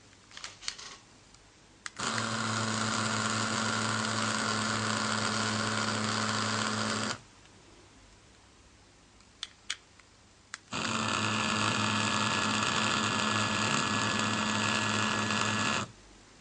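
Wireless pager receiver buzzing twice, each steady buzz lasting about five seconds, with a few short clicks before each buzz.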